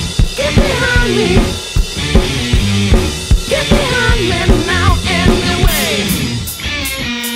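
Background music: a song with a drum-kit beat and a singing voice.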